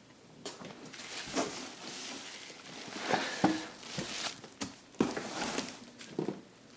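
Handling noise: rustling and a scattering of light knocks as a camera is moved about and set down beside an open cardboard shipping box.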